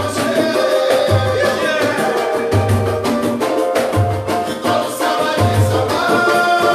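Samba group playing live: singing over dense hand percussion, with a deep low beat about every second and a half.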